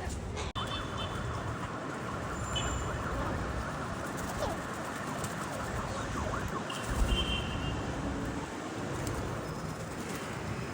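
Turquoise-fronted amazon parrots giving a few short, faint calls over a steady outdoor background of rumble and hiss, with a low bump about seven seconds in.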